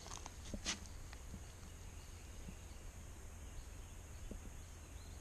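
Faint outdoor ambience: a steady high-pitched whine over a low rumble, with a few sharp clicks in the first second.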